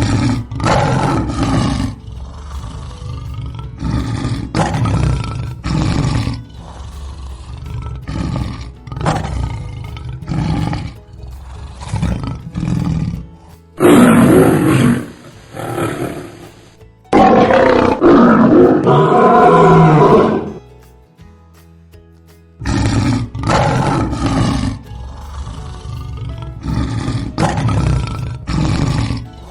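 Lions roaring: runs of short, repeated roaring grunts, with two longer, louder roars in the middle and a brief lull about two-thirds of the way through.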